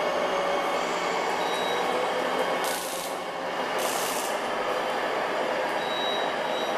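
Electronic engine sounds from RC model trucks' sound modules, a steady hum, with two short air-brake hisses about three and four seconds in.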